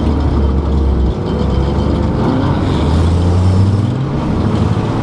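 Car engine and road rumble heard from inside the cabin while driving. The engine note eases off about a second in, then climbs steadily as the car accelerates.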